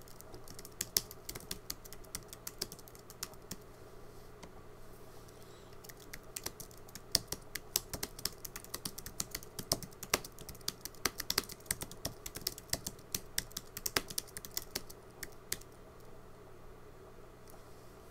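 Typing on a computer keyboard: a short run of keystrokes about a second in, a pause, then fast steady typing for about ten seconds that stops a few seconds before the end.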